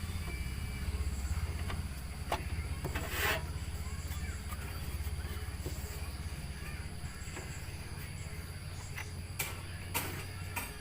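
Toyota Kijang Super's 5K four-cylinder petrol engine idling with a steady low hum, with a few sharp clicks and knocks over it. The hum drops off near the end.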